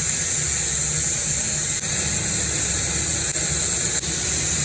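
Angle grinder with an 80-grit flap disc grinding steel plate clean, running steadily with a loud high hiss.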